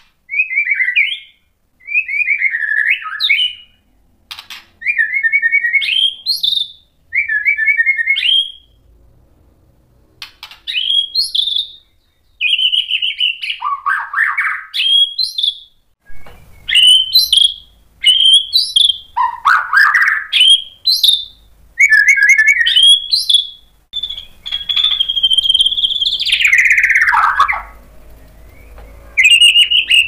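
A male white-rumped shama (murai batu) singing a run of short whistled phrases with short pauses between them. Many phrases end in a sharp upward sweep, and in the second half some longer phrases slide downward.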